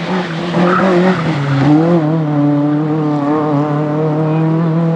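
Hillclimb race car at speed, its engine held at high revs with a steady, slightly wavering pitch. Tyre squeal comes over the engine in the first couple of seconds.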